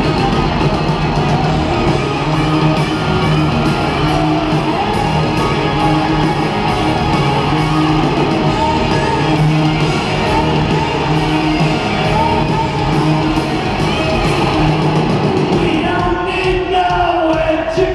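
Live hard rock band playing with singing and shouted vocals, recorded from the arena crowd. About sixteen seconds in the low end of the music thins out and a wavering line stands out.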